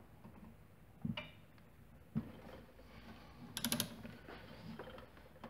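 Torque wrench ratcheting faintly on the drive clutch bolt as it is tightened toward 26 foot-pounds: a couple of single clicks and knocks, then a quick run of ratchet clicks about three and a half seconds in.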